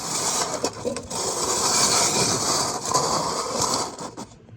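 Cups being shuffled, sliding and scraping across a surface in a continuous rough rub, stopping about four seconds in.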